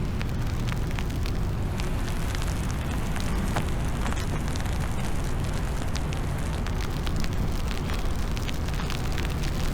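Wind buffeting the microphone in a snowstorm, a steady low rumble with scattered light ticks throughout.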